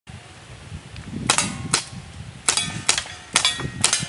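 Handgun shots fired in quick succession at steel plates: six sharp cracks about half a second apart, starting a little over a second in, each with a brief metallic ring.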